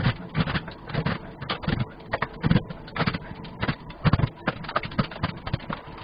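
Utility knife blade scraping and jabbing through a tile joint into the drywall behind it, in short irregular strokes, about three a second.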